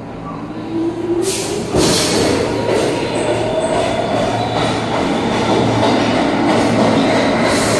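R46 subway train pulling out of the station and picking up speed. Its motor whine climbs steadily in pitch over loud wheel-on-rail noise that swells about two seconds in.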